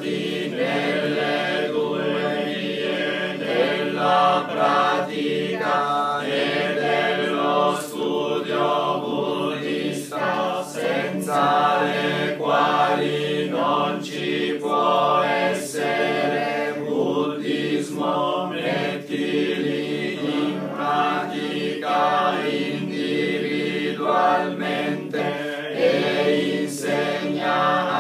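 Nichiren Shu Buddhist liturgical chanting: a priest and congregation chanting together in unison, a steady many-voiced chant with a few sharp clicks here and there.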